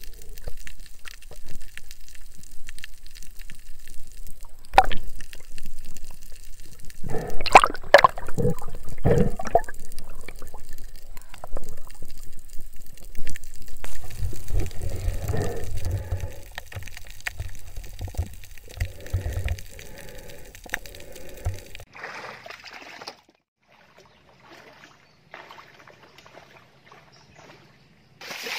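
Underwater water noise picked up by a spearfisher's camera: sloshing and bubbling, with scattered clicks and knocks that crowd together about eight seconds in. It drops much quieter about five seconds before the end.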